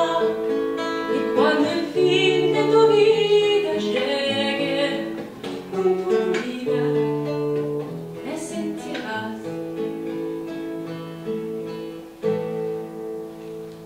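Female voice singing a tango over acoustic guitar accompaniment. The singing thins out in the second half while the guitars play on, closing with a final chord near the end.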